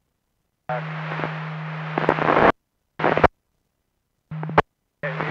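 Radio scanner squelch opening on several short, noisy transmissions with no clear words: hiss and crackle over a steady low hum. The first runs about two seconds and grows louder toward its end, two brief ones follow, and each cuts off abruptly to dead silence. Another opens near the end.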